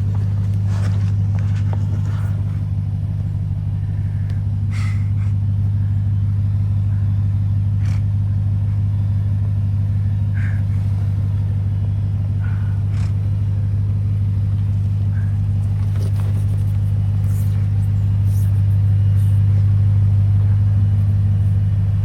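Off-road truck engine running at a steady low drone, with scattered faint clicks and knocks. It swells a little louder near the end.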